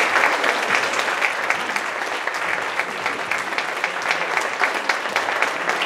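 An audience applauding, the clapping loudest at first and settling to a steady level.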